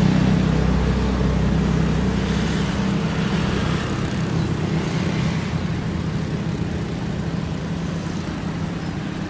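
Boeing 737 jet engines running at takeoff thrust during the takeoff roll: a steady rushing noise over a low hum, easing slightly in loudness.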